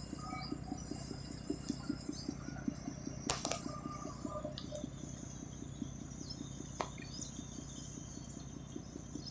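A small towboat's engine chugging steadily at about five beats a second, with a high steady shrill of insects over it. Two sharp clicks, about a third of the way in and again about two thirds in.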